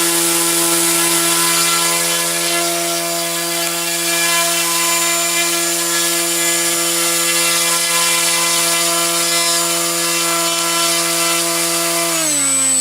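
Electric motor and propeller of an RC flying wing running steadily at high throttle on a power test, drawing about 26 amps and 290 watts from a 3-cell lithium polymer pack. The steady whine drops in pitch near the end as the throttle is eased back.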